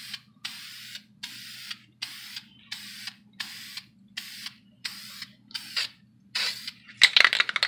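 Aerosol can of Dupli-Color vinyl and fabric coating spraying in short hissing bursts, about two a second, as a light dusting coat goes onto foam. A brief, louder rattle comes near the end.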